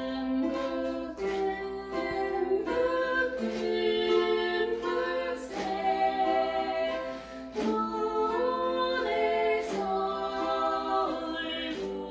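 A group of voices singing a slow, simple melody together, with a ukulele strummed along.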